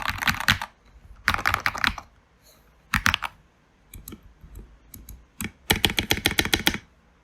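Typing on a Keychron K2 mechanical keyboard with lubed Gateron Yellow linear switches, SA-profile ABS keycaps and foam in the case: quick runs of keystrokes with short pauses between them, and a few lighter single taps in the middle.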